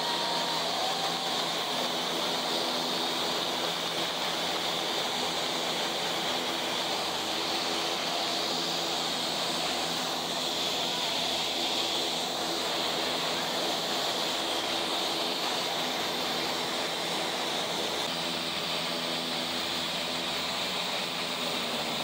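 Several Embraer A-29 Super Tucano turboprops running on the ground with their Pratt & Whitney PT6A engines and propellers turning: a steady rushing noise with a high turbine whine and a low propeller hum.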